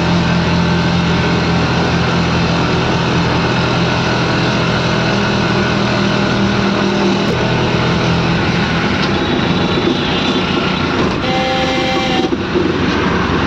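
A moving road vehicle, heard from on board: steady engine hum and road and wind rush, the hum fading out after about seven seconds. A vehicle horn sounds once for about a second, about eleven seconds in.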